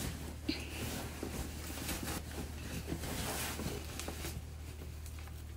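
Rustling of a silk pillowcase and a pillow as the pillow is pushed and worked into the case, fading somewhat near the end.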